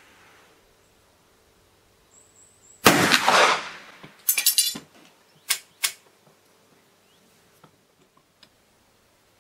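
A shot from a Pedersoli Whitworth .451 muzzle-loading percussion rifle loaded with black powder: a single loud report about three seconds in that rings out for about a second. About a second later comes a rattling run of sharp cracks, then two more single sharp cracks, and after that only faint ticks.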